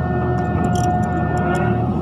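Mini excavator's diesel engine running steadily, with a steady high whine over it and scattered light clicks.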